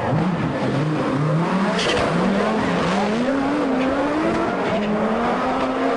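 Audi Quattro Group B rally car's turbocharged five-cylinder engine accelerating hard through the gears, its pitch climbing and dropping back at each shift, quick shifts at first and then longer pulls.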